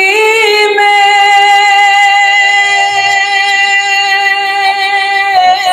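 A man singing a naat unaccompanied, drawing out one word on a long held note of about five seconds, steady after a slight waver at the start and wavering again near the end.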